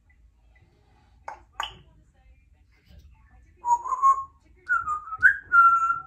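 Congo African grey parrot giving two short clicks, then from about four seconds in a run of whistled notes, some held steady and some gliding up or down.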